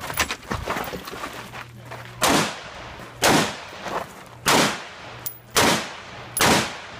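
Five rifle shots fired in a steady string about a second apart, each a sharp crack with a short echo, during a practical-shooting course of fire. Smaller scuffs and clicks come before the first shot.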